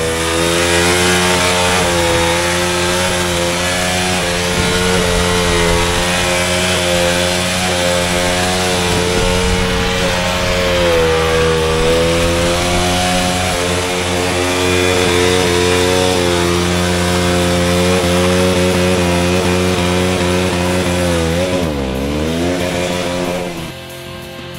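Motorcycle engine held at high revs, its pitch wavering up and down with the throttle. Shortly before the end the revs drop sharply and climb again, then the engine sound falls away.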